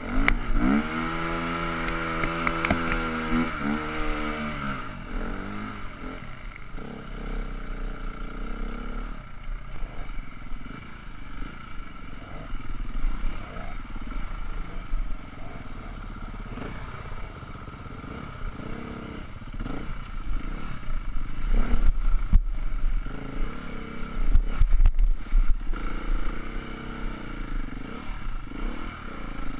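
Enduro dirt bike engine heard from on the bike while riding a rough trail: it revs hard and rises and falls in pitch for the first few seconds, then runs lower with changing throttle. Sharp knocks come from the bike over bumps, loudest near the end.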